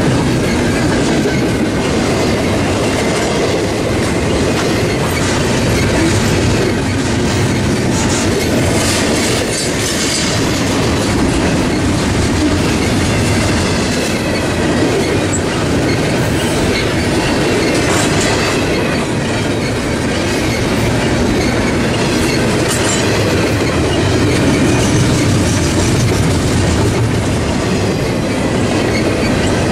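Double-stack intermodal freight train's container well cars rolling past close by: a steady rumble of steel wheels on rail with clickety-clack over the rail joints and a light wheel squeal.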